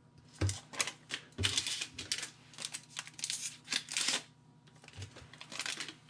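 Foil booster-pack wrappers crinkling and rustling as the packs are handled and stacked on a wooden desk, with a few soft knocks as packs are set down.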